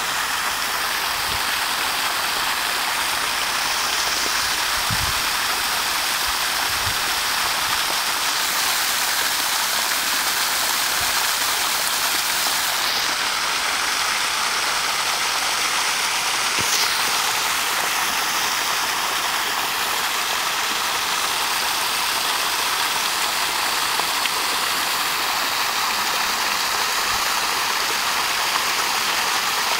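Steady rushing hiss like running water, unchanging throughout, with a few faint low knocks.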